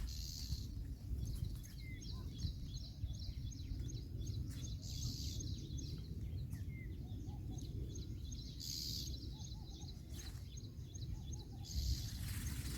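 Outdoor ambience: small birds chirping repeatedly over a steady low rumble, with a few brief hissy bursts.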